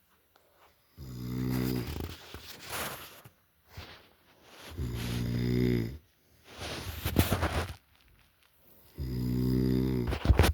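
A man snoring heavily. Three low, buzzing snores on the in-breath come about every four seconds, each followed by a noisy breath out.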